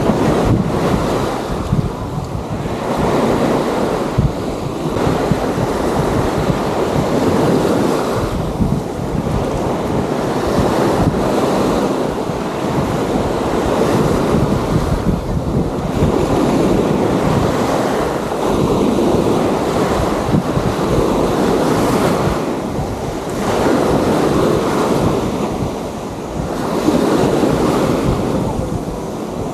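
Waves washing onto a sandy beach, swelling and easing every few seconds, with wind rumbling on the microphone.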